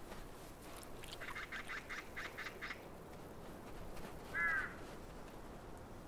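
Ravens calling: a rapid series of knocking notes, about six a second, starting about a second in, then a single short croak near the end.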